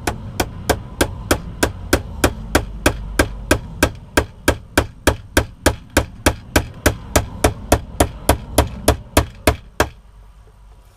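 Small hammer tapping pins to fix a wooden top onto a box, a steady run of sharp taps about three a second, stopping about ten seconds in.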